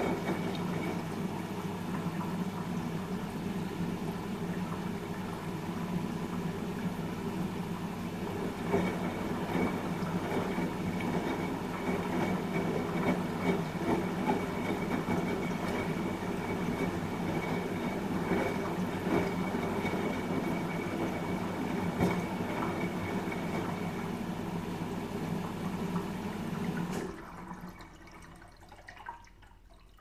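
Front-loading washing machine running with a steady hum and a faint fixed whine. The hum cuts off abruptly near the end.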